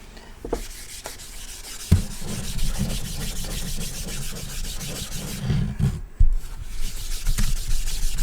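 Chalkboard being erased by rubbing it with a tissue: continuous back-and-forth rubbing that starts about two seconds in, with a knock at the start of the rubbing and another about six seconds in.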